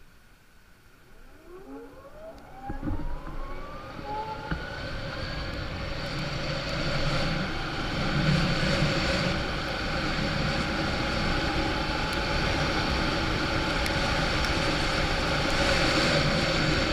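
Ather 450X electric scooter accelerating at full throttle in Warp mode: the motor's whine rises in pitch over the first few seconds. Wind and road noise then build and hold steady as the scooter reaches speed.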